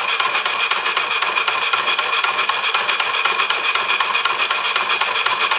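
All-wood model 'Minnie' steam traction engine, a single-cylinder engine driven by compressed air, running in first gear and turning its wheels: a steady air hiss beating in rapid, even pulses.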